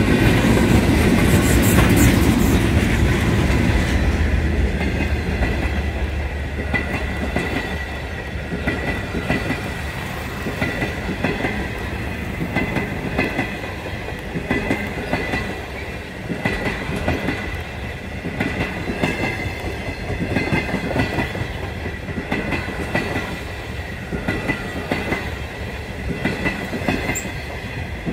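A passenger train passing close by: a diesel locomotive's deep engine is loudest for the first few seconds, then the stainless-steel carriages roll past with a steady, rhythmic clickety-clack of wheels over the rail joints and a thin, steady high-pitched whine from the wheels.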